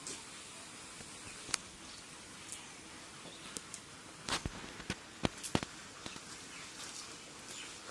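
Handling noise from a cast net as a fish is worked free of it: scattered sharp clicks and taps, most of them close together about four to six seconds in, over a steady outdoor hiss.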